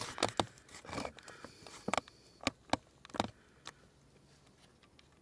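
Irregular clicks and knocks of metal tools being handled and moved about, as someone searches for a small sledgehammer. The clicks die away after about three and a half seconds.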